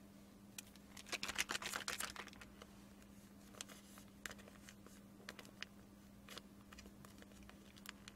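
Plastic instant-noodle sauce sachet being handled and torn open, with a quick run of faint crinkles and crackles about a second in, then scattered single crinkles.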